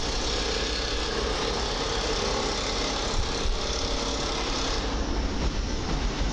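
EN57AKM electric multiple unit pulling out of the station and rolling past, a steady drone of its motors and wheels with a few faint steady tones.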